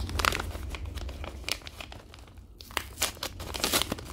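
Hands crinkling and rustling a white mailing envelope as they open it, in uneven bursts that grow busier over the last second or so.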